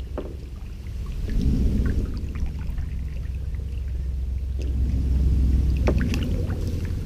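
American alligator bellowing, the deep rumbling mating call of a bull calling for females. It swells about a second and a half in and is loudest near the end.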